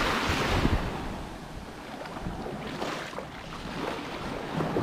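Small, gentle sea waves washing up on a sandy beach, loudest in about the first second and then softer, with wind rumbling on the microphone.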